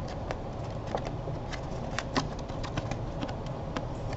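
Folded paper plate being handled and bent by hand: irregular light crinkles and clicks of stiff paper, over a steady low hum.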